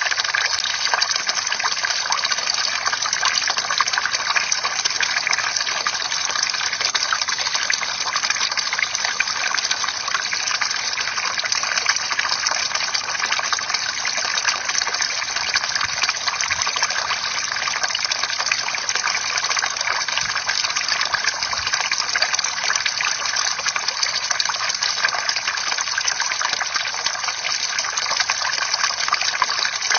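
Bamboo water fountain: water pouring and splashing steadily, with no pauses.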